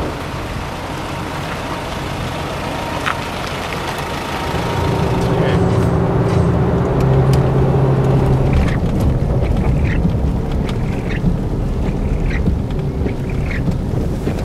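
Pickup truck driving on the road, heard from inside the cab: a steady engine drone with tyre and road noise that grows louder and deeper a few seconds in. In the second half a string of short squeaky chirps repeats irregularly, about one a second.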